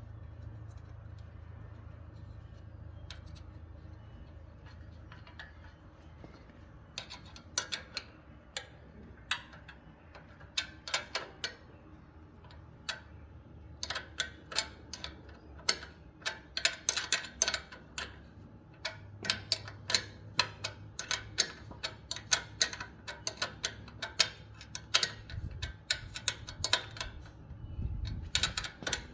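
Sharp, irregular metal clicks and clinks of hand tools and small hardware, sparse at first and then coming thick and fast, as a missing holding nut on a sickle-bar knife section is replaced.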